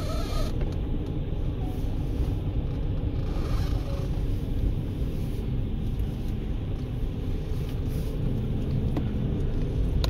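Car driving along a road, heard from inside the cabin: a steady low rumble of engine and tyre noise.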